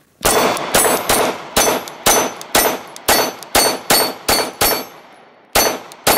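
A Gen 3 Glock 19 9mm pistol fired rapidly, about a dozen shots at roughly two a second, each with a short ringing tail, and a brief pause about five seconds in before firing resumes.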